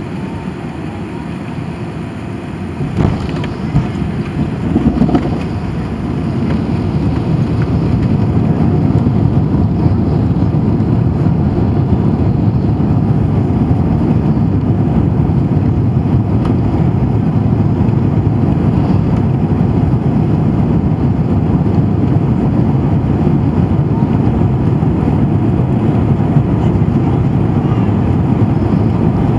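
Cabin noise inside an Airbus A380 taxiing: a steady low rumble from the engines and rolling gear, with a few knocks about three to five seconds in. The rumble grows louder about six seconds in and then holds steady.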